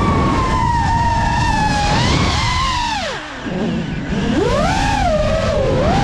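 FPV quadcopter's brushless motors whining, the pitch swooping with the throttle: steady at first, then diving sharply about three seconds in as the level dips, and climbing and falling again. A steady low rushing noise lies underneath.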